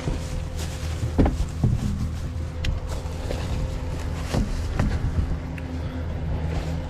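Tow truck engine idling with a steady low hum, with a few footsteps and knocks over it.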